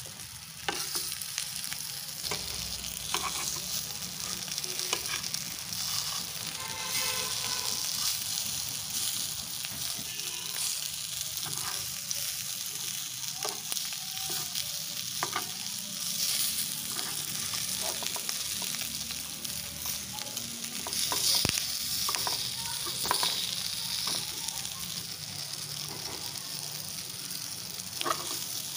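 Masala-coated fish pieces sizzling steadily as they shallow-fry in oil in a nonstick pan, with a metal turner scraping and clicking against the pan now and then as the pieces are flipped.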